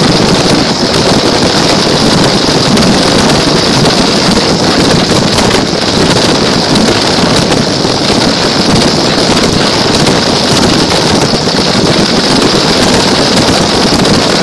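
Loud, steady rattling and rumbling noise with a constant high whine, picked up by a camera riding on a small toy car as it drives along.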